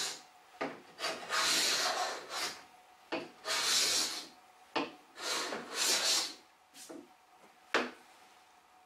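Hand sanding a veneered oak panel with a sanding block: a series of hissing back-and-forth strokes, about one a second, that stop after about six seconds. A single sharp tap follows near the end as a straightedge is set down on the panel.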